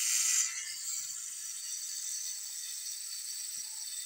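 A steady high hiss that starts abruptly, a little louder for the first half second, with one faint low tap about three and a half seconds in. No distinct camera shutter or winding clicks stand out.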